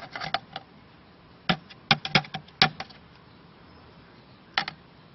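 Light clicks and taps of a metal putty knife knocking against a plastic cup: a quick cluster around two seconds in and a single tap near the end.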